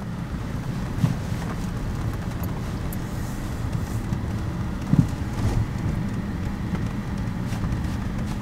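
A car driving slowly, heard from inside the cabin: a steady low rumble of engine and tyres, with two short knocks about a second in and about five seconds in.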